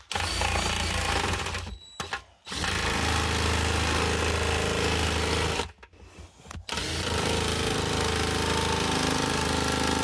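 Power drill with a step bit cutting through the wall of a bait barrel to enlarge a hole. It runs steadily in three long stretches and stops briefly about two seconds in and again about six seconds in.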